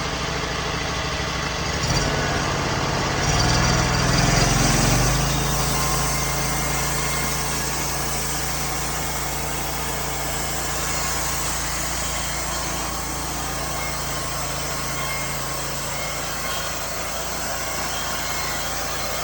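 The small petrol engine of a homemade bandsaw sawmill running, with the blade going. It grows louder a few seconds in, then runs steadily, likely while the blade cuts the board lengthwise.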